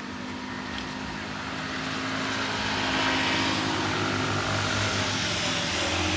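A motor vehicle's engine running, with steady low engine tones under a wash of road noise, growing louder over the first three seconds and then holding.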